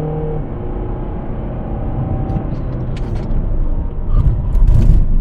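Volvo V70 D4 diesel car heard from the cabin while driving. A steady engine note breaks off about half a second in, leaving road rumble, with a few sharp knocks later on.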